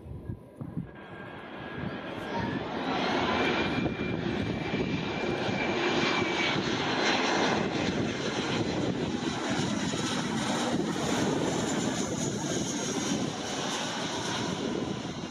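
Jet engines of a twin-engine Airbus A320-family airliner on final approach, gear down. The noise swells over the first few seconds as the plane draws near, then stays loud as it passes close by, with a steady high whine through the first half.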